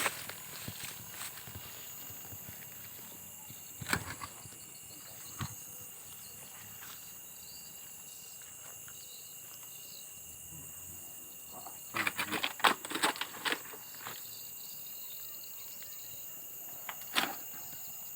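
Steady high-pitched chirring of night insects. A few sharp knocks and crackles break over it, with a quick cluster of them about twelve seconds in, like footsteps or handling on rubble.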